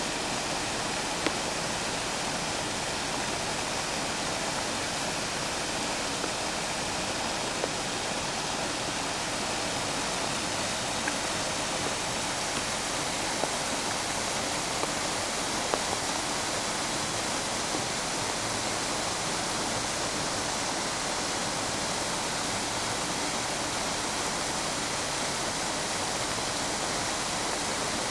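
Small waterfall of rain runoff pouring into a new pond: a steady rush of falling water, with a few brief sharp ticks scattered through it.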